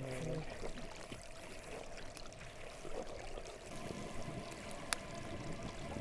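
Water trickling steadily, with a single sharp click about five seconds in.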